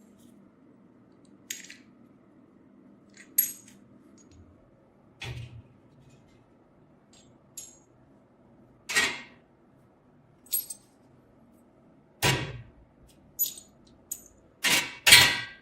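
Small metal parts being handled, clinking and knocking against each other and a hard surface: about a dozen separate sharp clinks, irregularly spaced, some ringing briefly, a few duller knocks, closer together near the end.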